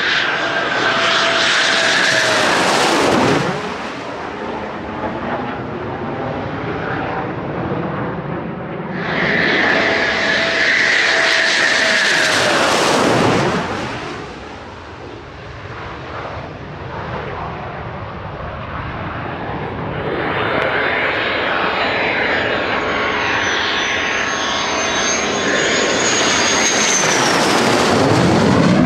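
Fighter jets flying low overhead on landing approach, three passes in a row. Each is a loud jet engine whine and rush that builds as the jet nears, then sweeps down in pitch as it goes over.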